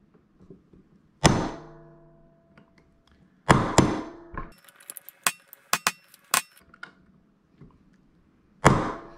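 A claw hammer strikes a steel punch about four times to drive out a rusted, seized 1/8-inch prop shear pin from an electric kayak drive's shaft. Each blow is a sharp metallic hit with a brief ring, and two come close together near the middle. A run of lighter metal clicks falls between the blows.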